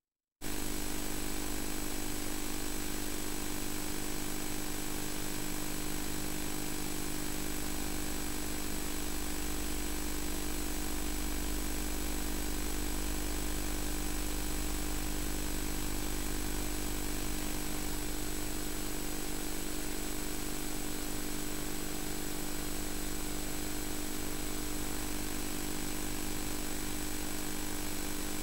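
Steady tape hiss with a constant low hum and buzz, unchanging throughout: the empty audio track of an old VHS recording.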